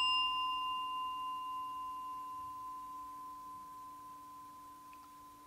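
A small bowl bell, struck once with a stick, ringing on in one clear, pure tone that fades slowly; its higher overtones die away within the first two or three seconds.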